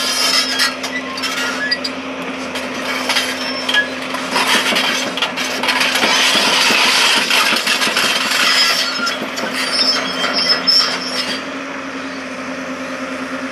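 Hyundai tracked excavator's diesel engine running with a steady hum, while its bucket scrapes and knocks and dirt and stones clatter into a truck bed.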